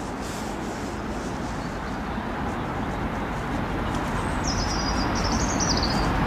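Steady rumble of distant road traffic, slowly growing louder, with a small bird singing a high warbling phrase for about two seconds near the end.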